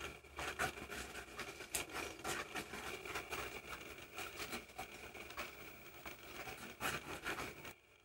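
A wooden stick stirring thick red rice-flour resist paste in an enamel bowl, with many irregular scrapes and clicks against the bowl. The sound stops suddenly near the end.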